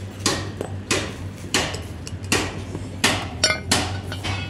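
Hammer blows on metal, about seven sharp strikes at a fairly steady pace of roughly one every two-thirds of a second, over a low steady hum.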